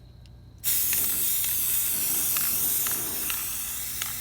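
Aerosol can of gold spray paint spraying in a steady hiss, starting about half a second in and easing off slightly toward the end.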